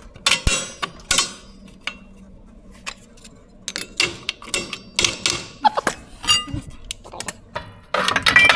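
Metal hand tools clinking and knocking against metal, a run of irregular sharp clicks and clanks with a brief ring to some of them, as a wrench or socket is handled and worked.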